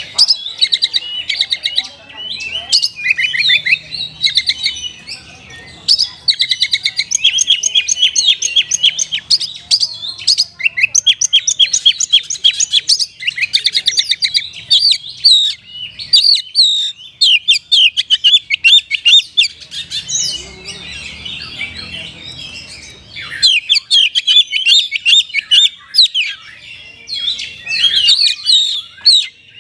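Oriental magpie-robin (kacer) singing a loud, fast, continuous song of rapid repeated trills and sharp chirps, said to be in the style of the kapas tembak.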